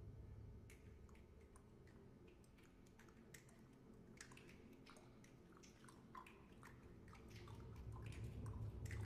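Very soft passage of a wind band piece: a timpani roll dies away in the first second, then scattered light clicks and taps sound over a faint low held tone, and the roll swells back in over the last two seconds.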